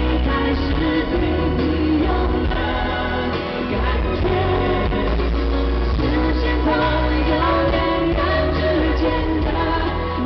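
Live pop duet: a man and a woman singing over a full band, recorded from among the arena audience.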